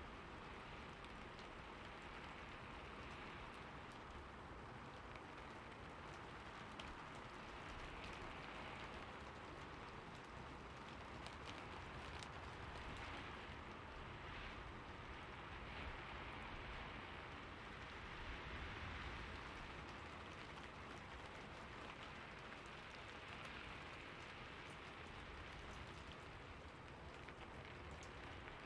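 Steady rainfall, a continuous hiss with fine scattered drop ticks.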